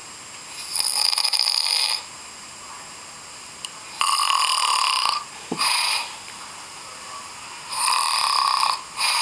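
Snoring: rasping, hissy snores about a second long, coming every three seconds or so, some followed by a shorter snort-like breath.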